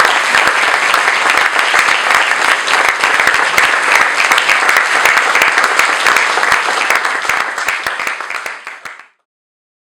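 Audience applauding at the end of a live song: dense clapping that thins out near the end and then cuts off suddenly about nine seconds in.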